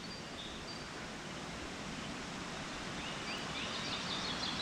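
Woodland trail ambience: a steady rush of flowing stream water, with a small bird chirping. A quick run of short, high chirps comes about three seconds in.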